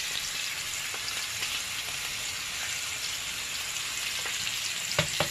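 Steaks, one a T-bone, searing in butter on a ridged grill pan: a steady sizzle, with a few sharp ticks near the end.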